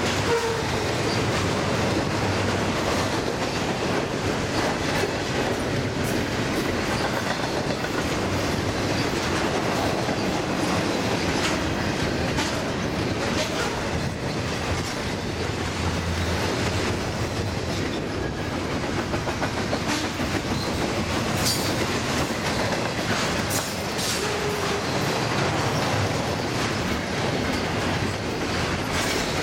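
Double-stack intermodal well cars of a long freight train rolling past: the steady noise of steel wheels on the rails, with a few sharp clicks about three-quarters of the way through.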